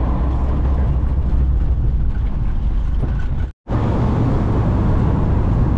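Steady engine and road noise inside a moving Volkswagen Kombi van, a low rumble with a haze of road noise above it. It cuts out for a moment a little over halfway through, where the recording is edited.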